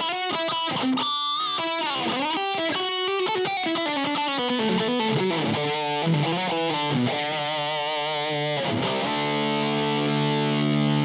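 Electric guitar played through an IK Multimedia X-Drive distortion pedal set to its "80s rock" preset. A distorted single-note lead line runs with slides, bends and vibrato, then about nine seconds in it settles into a sustained ringing chord.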